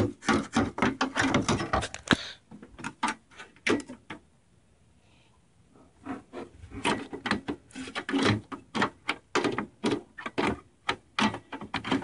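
Graphics card being worked into a PC's expansion slot and case: quick clicks, knocks and scrapes of the card's metal bracket and board against the metal case and slot, in clusters with a quiet pause of about two seconds in the middle.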